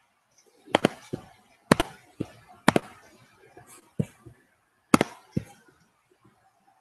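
Sharp digital pops and crackles about once a second, often in close pairs: audio glitching on a dropping video-call connection.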